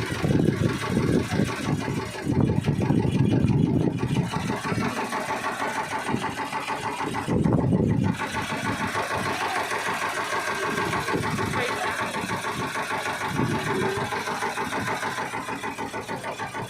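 Boat engine running steadily with a low, pulsing drone during a creek crossing.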